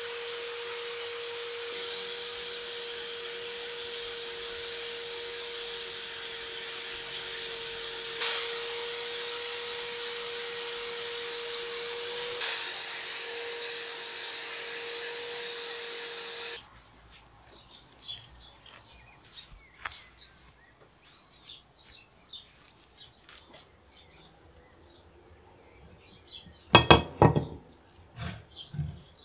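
Cordless drill spinning a polishing wheel against a steel axe head, a steady whine with the hiss of the wheel rubbing the metal, which stops abruptly about 16 seconds in. After that, small handling clicks and, near the end, a short run of loud knocks as a wooden log is set down on a wooden workbench.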